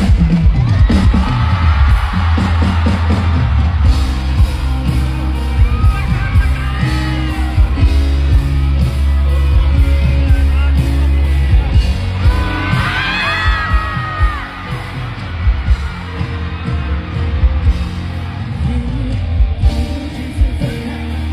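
Live band playing a loud song intro with heavy bass and drums, kicking in abruptly, while a crowd screams and whoops over it, loudest about a second in and again around twelve seconds in.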